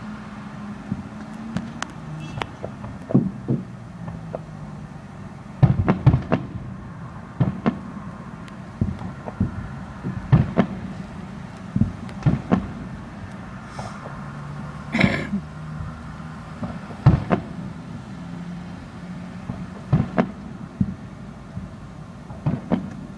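Fireworks going off: a scattered series of booms and sharp cracks at irregular intervals, over a low steady hum.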